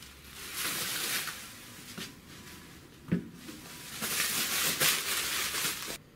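Plastic bubble-wrap packing rustling and crinkling in bursts as a boxed CNC control unit is unwrapped and handled, with a single knock about three seconds in as the box is set down. The rustling cuts off abruptly near the end.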